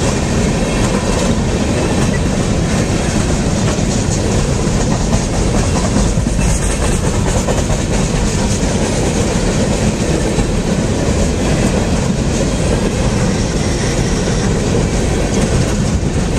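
CSX freight train's open-top coal gondolas rolling past at speed: a steady rumble of steel wheels on the rails, with a dense, continuous clatter of wheels over rail joints.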